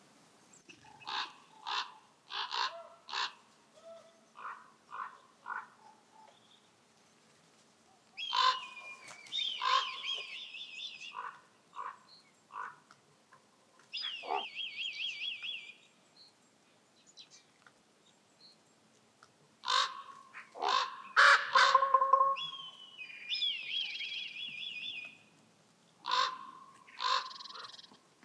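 Common ravens calling: a run of short croaks, then bouts of rapid, wavering rattle and gurgling calls, loudest about two-thirds of the way through.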